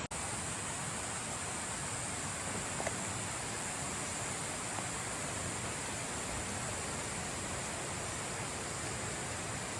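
Flowing river water, a steady, even rush with one small tick about three seconds in.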